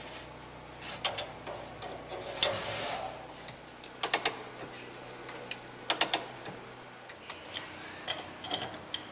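Metal tools and parts being handled: scattered sharp metallic clicks and clinks in small clusters, with a brief rushing noise about two and a half seconds in.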